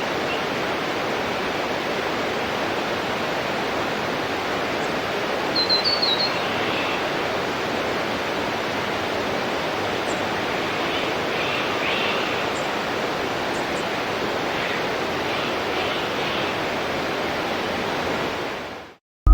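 Waterfall: a steady, even rush of falling water, with a few short high chirps about six seconds in and fainter ones later. The water sound fades out just before the end.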